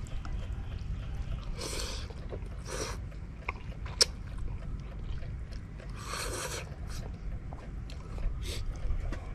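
A man eating instant noodles: three short slurps and chewing, with one sharp click about four seconds in.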